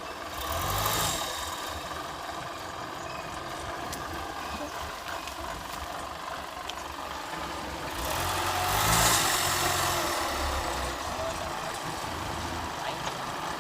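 Kubota DC-105 combine harvester's diesel engine running as the machine travels, swelling louder briefly about a second in and again for a couple of seconds about eight seconds in.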